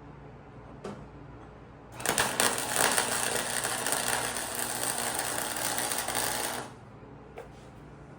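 Welding arc crackling and buzzing in one steady bead of about four and a half seconds, starting and stopping abruptly as the arc is struck and broken.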